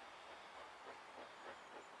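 Faint chuffing of a steam locomotive working, its exhaust beats coming in a quick, even rhythm from about a second in.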